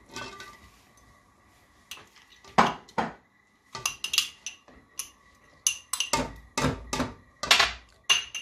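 Soaked rice tipped from glass tumblers into saucepans of hot milk, then a run of sharp clinks and knocks from about two seconds in as a metal spoon scrapes the last grains out of a glass and utensils tap against the glass and the enamel pans, coming faster and louder near the end.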